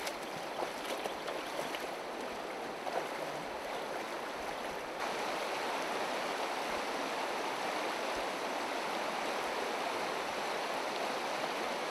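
Shallow, stony river running over rocks: a steady rush of water, a little louder from about five seconds in.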